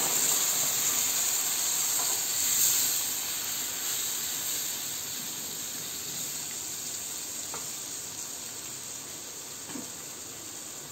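Fried spice paste in a frying pan sizzling and hissing just after a splash of thin coconut milk goes in, the sizzle slowly dying down as it is stirred with a wooden spatula, with a few faint taps.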